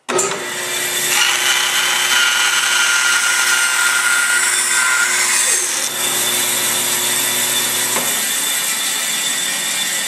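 Power saw running and cutting wood, a loud steady noise with a faint whine. The whine fades out about halfway through.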